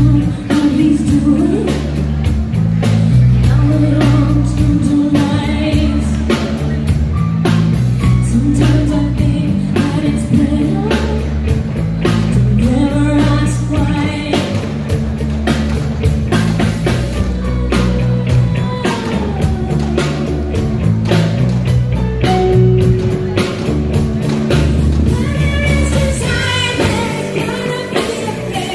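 Live rock/pop band playing through a PA: a woman sings lead over a steady drum-kit beat, electric bass and electric guitar.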